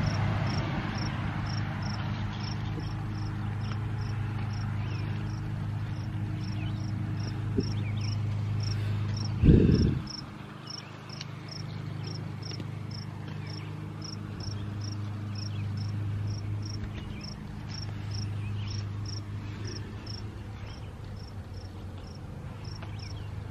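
Cricket chirping steadily, short high chirps about twice a second, over a low steady hum. One loud thump about nine and a half seconds in.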